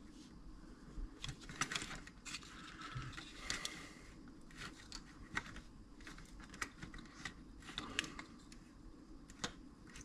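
Scattered light clicks and scrapes of small hand tools and components being handled while desoldering parts from a TV power supply.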